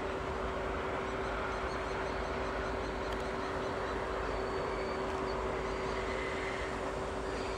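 Ol49 steam locomotive standing with steam up: a steady hiss with a constant hum, no exhaust beats. Faint bird calls come through on top.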